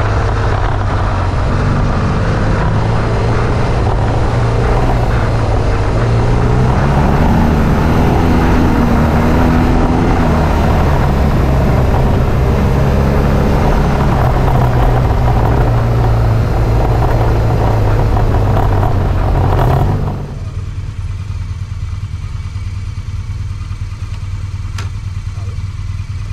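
Adventure motorcycle engine running under way on a dirt track, with steady wind and road noise over the engine. About twenty seconds in the sound drops abruptly to a much quieter steady engine sound as the bike comes to a stop.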